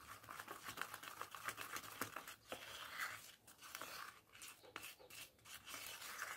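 A spoon stirring thick homemade primer paste of glue and cassava starch in a small plastic cup, with faint, irregular scraping and small clicks of the spoon against the cup.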